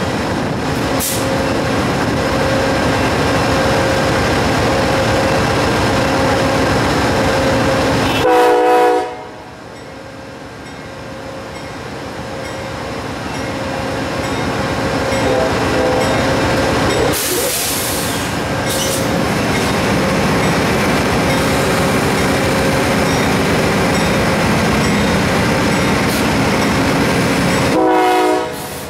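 Amtrak GE P42DC Genesis diesel locomotive running alongside, with a steady engine drone. Its horn sounds in short blasts, once about eight seconds in and again near the end. There is a brief hiss a little past halfway, and the engine sound builds up gradually between the blasts.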